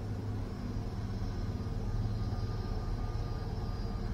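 Airbus A320neo jet engines running at low taxi thrust as the airliner turns on the runway: a steady low rumble with a faint high whine.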